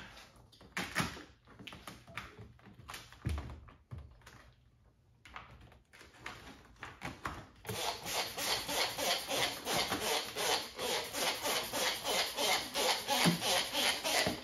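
Trigger spray bottle pumped rapidly, about three to four short sprays a second, misting liquid under paint protection film that has been lifted off the panel. Before that, scattered rustles and soft clicks as the film is peeled up.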